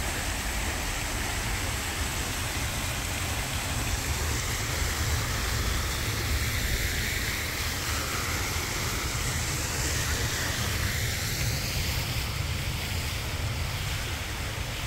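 Fountain water splashing steadily, with wind rumbling on the microphone.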